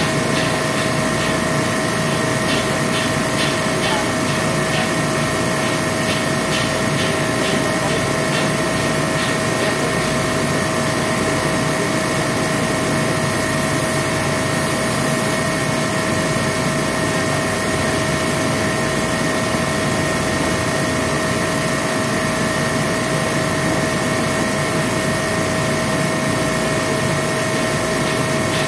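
A machine running continuously: a steady drone with several fixed whining tones over it, and faint rapid ticking through the first several seconds.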